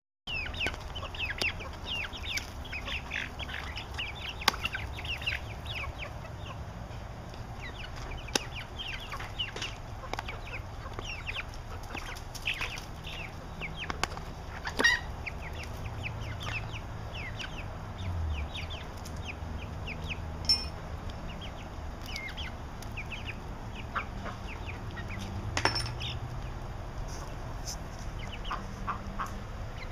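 A flock of five-week-old chickens cheeping as they feed: many short, high-pitched, falling peeps, thick in the first half and thinning out later.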